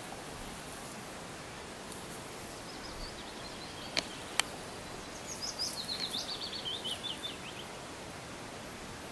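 Steady outdoor hiss with two sharp clicks close together about four seconds in. Then a small songbird sings a quick trill of short notes that falls in pitch, lasting about two seconds.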